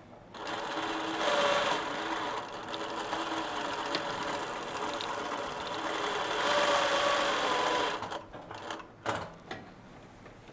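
Reliable 2300SZ direct-drive zigzag sewing machine stitching a zigzag seam through denim: it starts about half a second in, runs with two faster, louder stretches, and stops about eight seconds in. A few short clicks follow.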